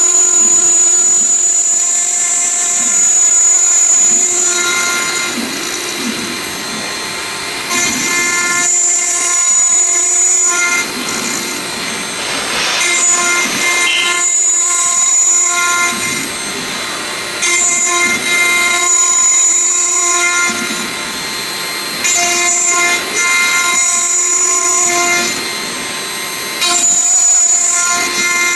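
Stone CNC router's spindle running with a steady whine made of several fixed tones, as it cuts stone. Louder stretches of two to three seconds, with a high whistle-like tone, come back every four to five seconds as the tool makes repeated cutting passes.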